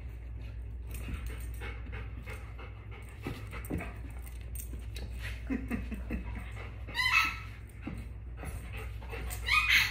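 Golden retriever panting and sniffing while it searches for its hidden toy, with two short high whines, one about seven seconds in and one near the end.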